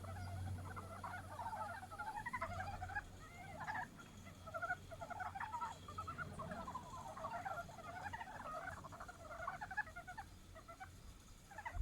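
Chorus of montane brown frogs (Rana ornativentris) giving their breeding calls: many short, rapid chattering calls overlapping one another without pause.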